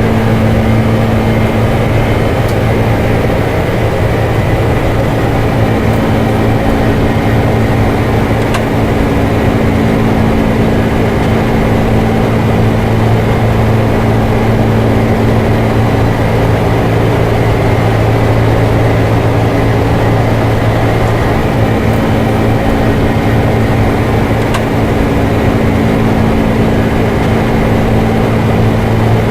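Steady flight-deck noise of a Boeing 747-400 with its engines running: an even rush with a constant low hum and a few faint ticks.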